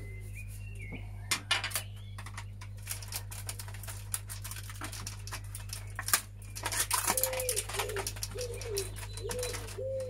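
Clicks and rattles of plastic casing and small parts being handled as a CD cassette player is taken apart, over a steady low hum. From about seven seconds in, a pigeon coos repeatedly, a short rounded note about every half second.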